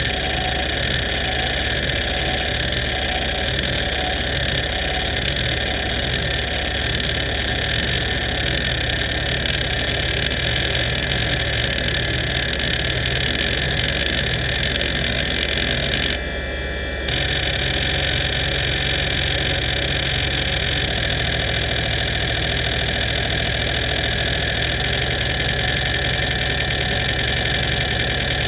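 NEC D3724 single-platter hard drive running hdmotion: the spindle whines steadily while the heads seek back and forth in a rapid, shifting pattern of rough chattering. About sixteen seconds in the seeking stops for about a second, then resumes in a new pattern.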